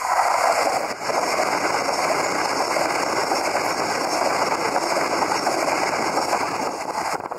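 Passenger train passing close by at speed: a loud, steady rush of wheels on rail and moving air, easing slightly near the end.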